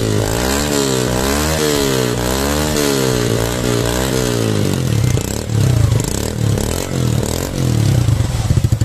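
Yamaha FZ-S's single-cylinder engine revved through an Akrapovic aftermarket silencer that is only held on by hand for a test, not yet fitted. The throttle is blipped up and down several times in a row, then a few shorter, uneven revs, and the engine drops back to idle near the end.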